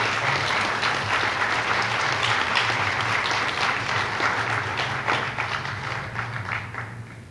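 Audience applauding after an award is announced, the clapping thinning out and dying away near the end, over a steady low hum.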